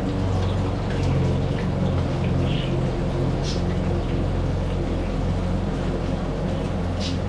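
Steady low rumble of the burner under a plow-disc cooker, with breaded fish frying in hot oil. A few light clinks of metal tongs come through.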